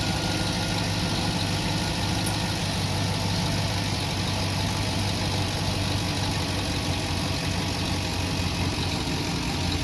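2008 Cadillac Escalade's V8 engine idling steadily.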